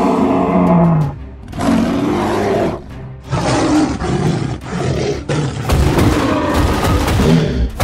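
Dinosaur roar sound effects: three long roars one after another, then a louder blast with a deep rumble from about six seconds in.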